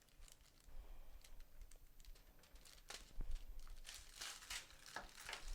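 Faint crinkling and rustling of packaging being handled, in scattered short bursts that grow busier about three seconds in.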